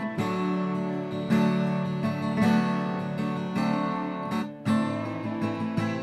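Background music played on acoustic guitar, plucked notes and chords.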